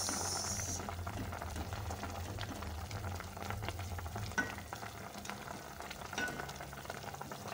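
Smoked fish stew simmering and crackling in a metal pot while a wooden spoon stirs it, with small scrapes and knocks against the pot. A brief high hiss at the very start.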